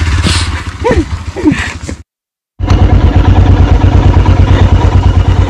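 Motorcycle engine running steadily with a low, even beat. The sound drops out completely for about half a second, about two seconds in, then comes back louder.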